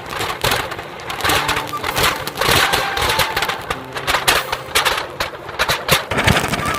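Anar flower-pot firework spraying sparks: a steady loud hiss full of sharp crackles, with background music underneath.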